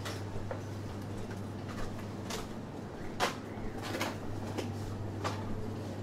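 Footsteps on a hard shop floor, a handful of unhurried steps at irregular spacing, over a steady low hum.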